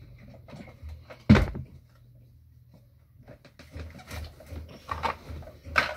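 A sharp knock about a second and a half in, then light scattered clicks and rustling as things are moved about on a desk.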